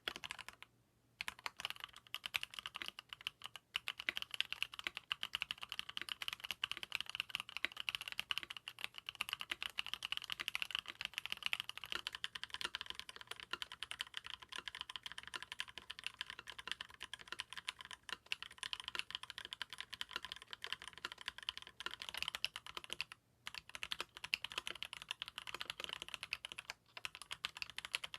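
Continuous fast typing on a custom mechanical keyboard with lubed linear switches in an aluminium plate, a steady stream of key strokes. It breaks off briefly about a second in and again past the middle, where one switch set gives way to the next.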